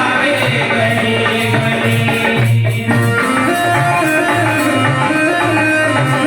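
Instrumental interlude of Hindi devotional bhajan music: hand drums keep a steady beat under a melody line, with a shaker-like rattle. The music drops out briefly about two and a half seconds in.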